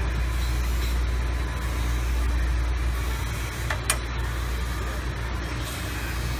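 Steady low drone of machine-shop equipment, an even hum with a constant noise bed, and a short sharp click about four seconds in.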